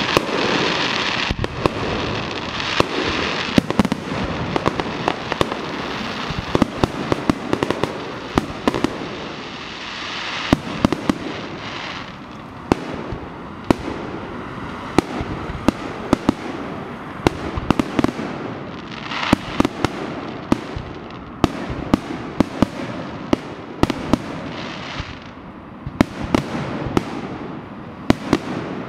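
Fireworks display: a rapid, irregular series of sharp bangs from aerial bursts over a continuous crackle, with spells of hissing.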